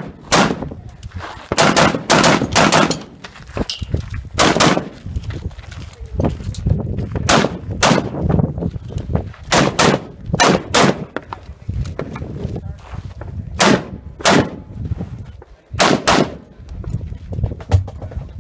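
AR-15 rifle shots fired mostly in quick pairs, about twenty shots with short pauses between pairs as the shooter moves from target to target.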